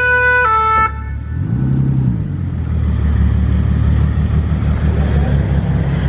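An ambulance's two-tone siren, alternating between two pitches, cuts off just under a second in. After it comes the deep, steady engine rumble of a Mansory-modified Bentley Continental GT pulling away, with a brief rise in pitch at about two seconds.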